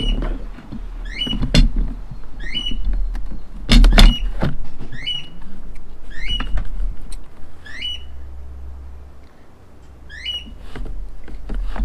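Battery and foam padding being pushed and shifted into a battery box: knocks, scrapes and rustling, loudest about four seconds in. A bird calls over and over in the background, a short rising note about every second and a bit, pausing for a couple of seconds near the end.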